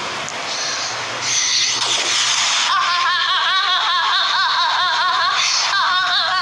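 Heavily processed, high-pitched voice sound effects. A hissing burst lasts about the first two and a half seconds. Then comes a warbling, laugh-like voice whose pitch wobbles about four times a second, with a brief break near the end.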